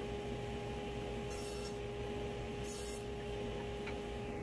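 Cut wooden pieces being handled and set down on a table saw's top: two brief clatters about a second and a half apart, over a steady hum, with a background hiss that cuts off near the end.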